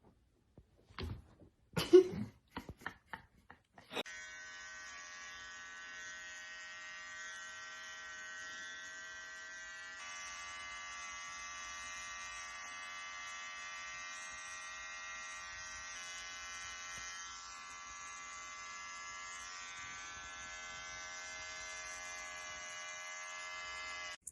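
A few knocks and one short, loud sound in the first seconds, then a steady, high electric buzz made of many even tones that runs on for about twenty seconds.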